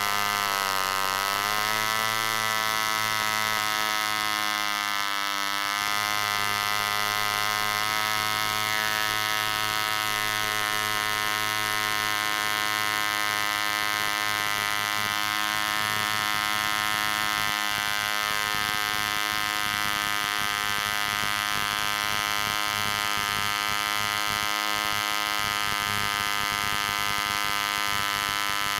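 Bantam 19 spark-ignition model engine, a 1940s two-stroke petrol engine, running flat out on a 9x6 wooden propeller at about 6,200 to 6,400 rpm as a steady, high buzz. Its pitch sags in the first few seconds and picks back up about five seconds in, then holds nearly steady.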